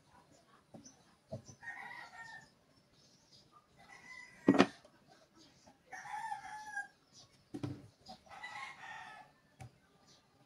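A rooster crowing in the background, three calls of about a second each, mixed with wooden blocks knocked down onto a workbench; one sharp knock near the middle is the loudest sound.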